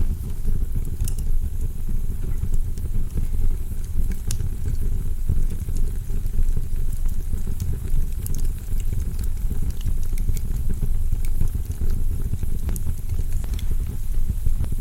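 Fireplace log fire burning: a steady low rumble with scattered crackles and pops.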